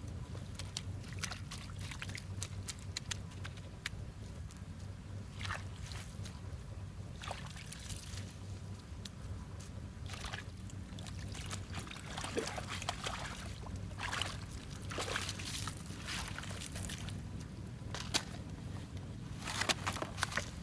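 Hands squelching and sloshing through wet mud in a drained pond, in irregular short bursts over a steady low hum.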